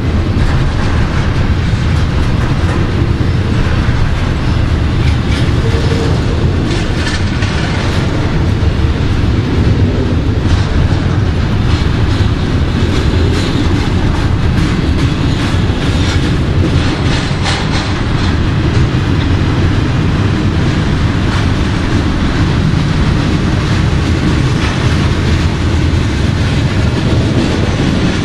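Double-stack intermodal freight well cars rolling past close by: a loud, steady rumble of steel wheels on the rails, with scattered clacks as the trucks pass over the rail joints.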